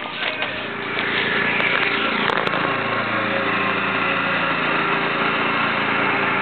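Riding lawn mower's engine running steadily, growing louder about a second in.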